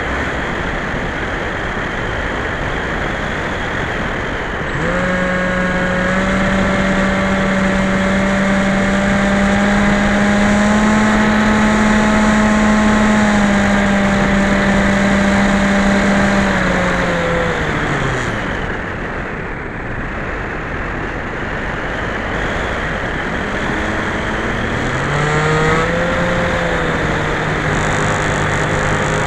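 Electric motor and propeller of a Skyhunter FPV model plane over a steady rush of wind. The motor's drone comes in about five seconds in and holds, falls away in pitch and fades as the throttle is cut, then rises again near the end as power comes back on.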